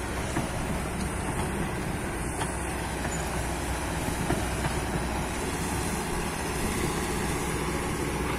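Excavator's diesel engine running steadily, a low, even rumble.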